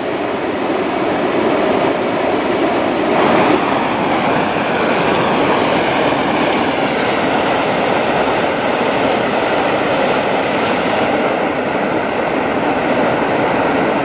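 Small stepped waterfall: white water pouring over a ledge into a pool, a steady, dense rush. The sound turns brighter and more hissy about three seconds in.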